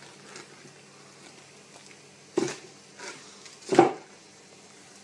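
Plastic bag crinkling and rustling as it is handled on a plate, in three short bursts about half a second apart, the last one the loudest, over a faint steady hum.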